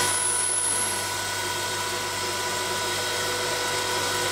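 Vertical double-head hot air popcorn machine running: a steady mechanical hum with several steady tones from its hot-air blower, and a brief high whine in the first second.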